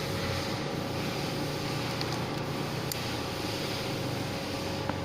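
Steady hum of background machinery, with a few faint light clicks.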